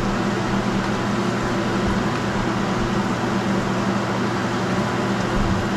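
Steady low hum with an even hiss throughout: a kitchen fan running while food fries in the pan.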